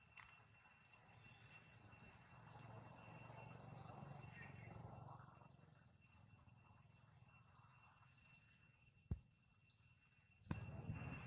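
Faint forest ambience: short, buzzy, high-pitched chirps repeat roughly once a second over a steady high drone. There is a single sharp click about nine seconds in, and louder rustling near the end.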